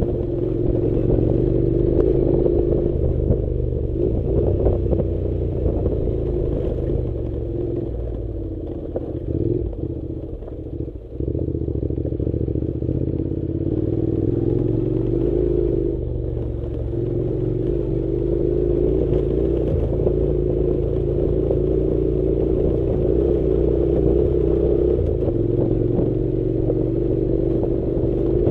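Honda NC700's parallel-twin engine running steadily under way on a dirt road. It drops off in loudness around ten seconds in, then picks up again about a second later.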